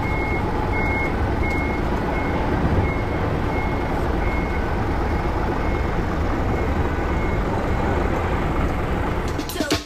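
Semi-trailer truck reversing: its back-up alarm beeps steadily, about one and a half beeps a second, over the constant low running of the diesel engine. Intro music cuts in near the end.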